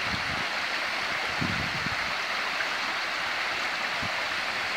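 Small waterfall pouring over a stone ledge into a shallow, rocky stream: a steady rush of falling and splashing water.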